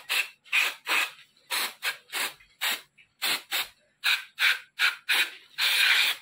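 Aerosol throttle body cleaner sprayed onto a motorcycle throttle body in a rapid series of short hissing squirts, about two or three a second, with a longer squirt near the end. It is flushing black carbon deposits out of the throttle bore.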